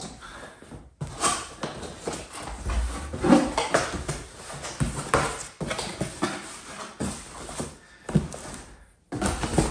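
Cardboard box being opened by hand: the flaps scrape and rustle as they are pulled up and folded back, with several knocks against the box.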